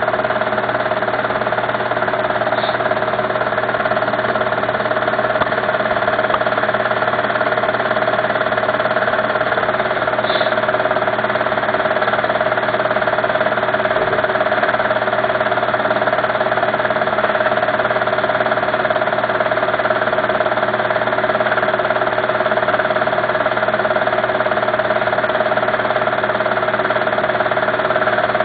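A motor running at a steady, unchanging speed with an even hum.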